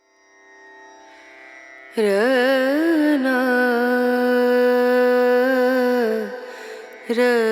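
Indian-style song: a sustained drone fades in, then about two seconds in a voice sings one long ornamented note, wavering at its start and held for about four seconds. A second loud note comes in near the end.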